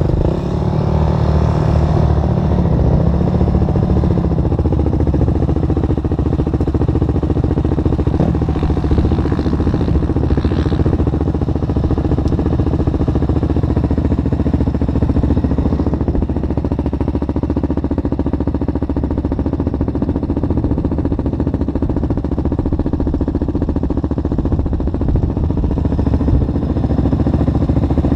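Single-cylinder four-stroke ATV engine idling steadily at close range.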